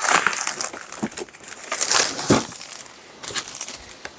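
Packaging crinkling and rustling as it is handled and opened, in uneven bursts with a few sharper crackles.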